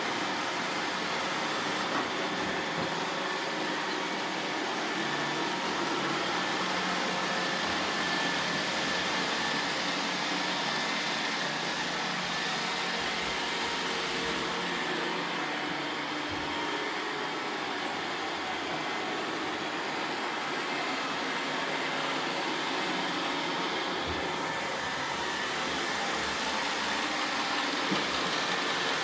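Roomba robot vacuum cleaners running: a steady whir of suction motors and brushes with faint steady whining tones.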